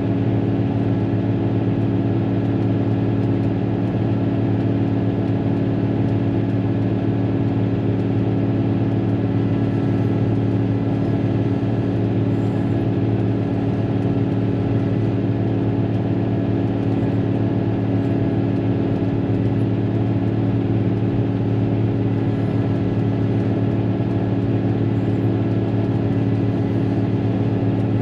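Cat motor grader's diesel engine running steadily, heard from inside the cab: a constant low drone that does not change in pitch or pace.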